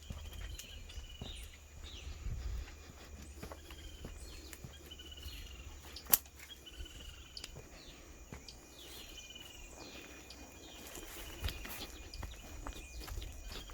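Footsteps on the ground while a bird calls over and over, short notes about once a second, over a faint steady high-pitched tone. One sharp click about six seconds in.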